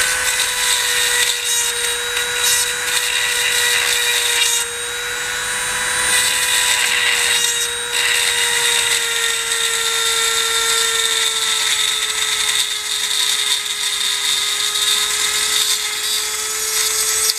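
Dremel rotary tool with a diamond bit running at high speed, grinding into a broken bolt in a transfer case output shaft: a steady high whine over a gritty hiss. The pitch sags slightly now and then under load, and the grinding hiss eases off briefly twice early in the run.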